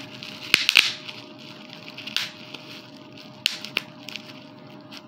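Plastic bubble wrap being handled, crinkling, with about five sharp pops or snaps spread through it.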